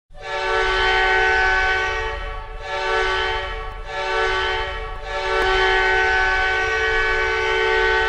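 Wenatchee Wild hockey goal horn, a deep air horn sounding a chord of several tones, blown in four blasts: a long one, two shorter ones, then a long held blast.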